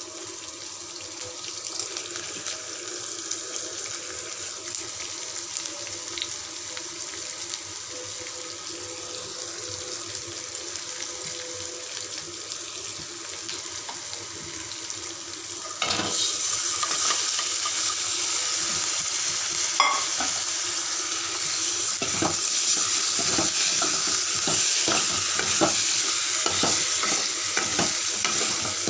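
Samosa vegetable filling frying in oil in a kadai, sizzling steadily, with a spatula knocking and scraping as it is stirred. About halfway through the sizzle suddenly grows louder.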